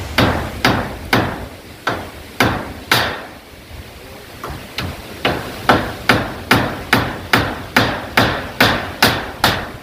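Hammer striking repeatedly, typical of nailing corrugated zinc roofing sheets down: a run of sharp blows, a pause of about a second and a half near the middle, then a steady run of about two blows a second.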